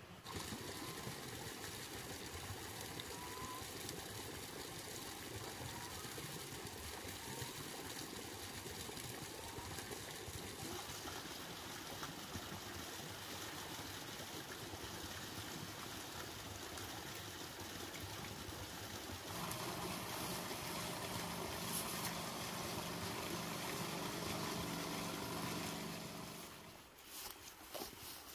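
Backpack pesticide sprayer running, with a steady hiss of spray through its wand. About two thirds of the way in, the pump motor's steady hum becomes louder for several seconds, then it cuts off near the end.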